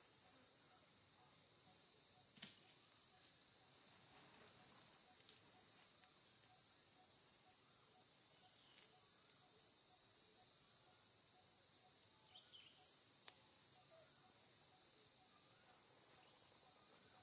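Steady, high-pitched chorus of insects droning without a break, with a few faint clicks.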